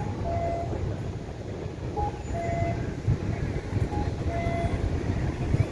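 Wind rumbling and buffeting on the microphone. Over it, an electronic two-note beep, a short higher pip and then a longer lower tone, repeats about every two seconds.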